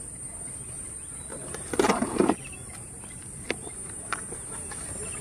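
Cardboard shipping box being torn open by hand: a loud rustling rip of tape and cardboard flaps about two seconds in, then a couple of small clicks of the flaps. A steady high-pitched chirring of crickets runs underneath.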